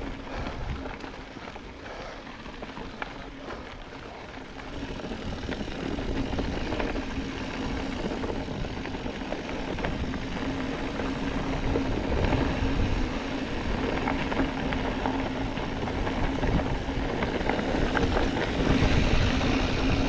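Wind buffeting a GoPro Hero8 Black's microphone, with tyre and trail noise, as a mountain bike rolls downhill. It grows louder after about five seconds as the bike picks up speed, with a steady low hum underneath.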